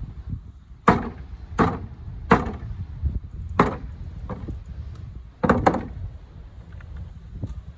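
Hatchet chopping a skinned raccoon carcass into pieces on a wooden block: sharp chops at irregular spacing, about six in all, the last two close together.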